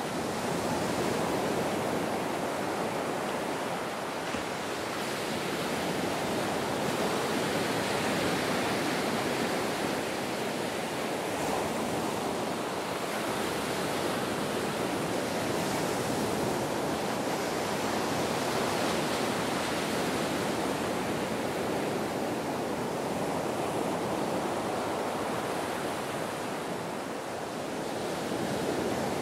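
Ocean surf washing onto a beach: a continuous, dense rush of breaking waves that swells and eases slowly.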